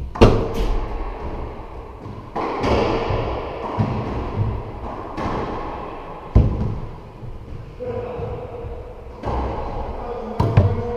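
A racquetball rally: the ball is struck by racquets and slams off the walls and floor of an enclosed court. There are about eight sharp cracks spread unevenly, each ringing briefly in the hard-walled room.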